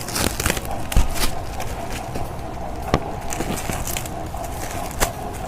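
Handling noise: a few scattered sharp knocks and light rustling as the rubber-coated hex dumbbells and their packaging are moved about, the loudest knock about a second in.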